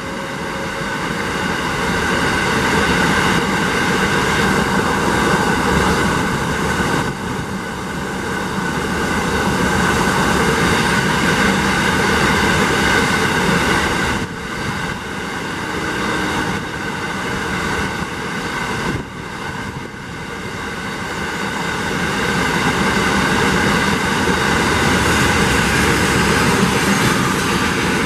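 Long rake of empty container flat wagons rolling past at speed: a loud, steady rumble of steel wheels on rail with several held ringing tones over it, dipping briefly three times.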